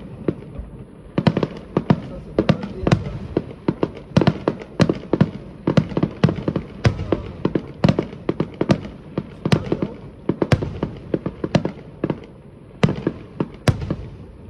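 Fireworks display: rapid volleys of sharp bangs, dozens of explosions in quick succession. There are short lulls about a second in and again near the end, and one especially loud bang shortly before the end.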